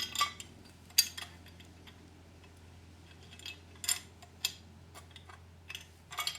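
A few light metallic clicks and clinks, spaced unevenly, as the metal parts, bolts and washers of a chainsaw mill frame are handled and fitted together by hand, over a faint steady low hum.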